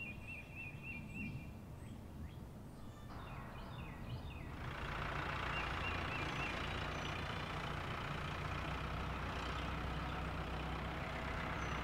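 Car engine sound effect of a cartoon SUV driving along, a steady hum that swells in about four seconds in. A short warbling bird chirp is heard at the very start.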